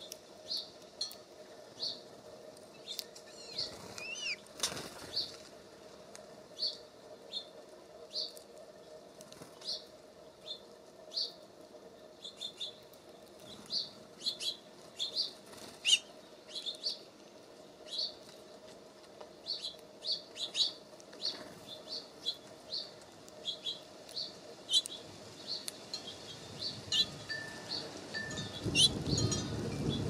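Small birds calling around a feeder, with short high chirps repeated every second or so. A brief flutter of wings comes about four seconds in, and wind rumbles on the microphone near the end.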